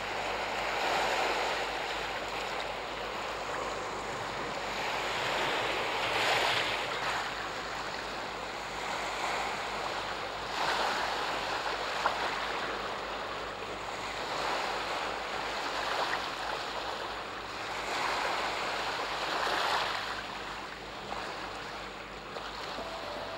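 Sea waves washing in, a rushing noise that swells and fades every few seconds.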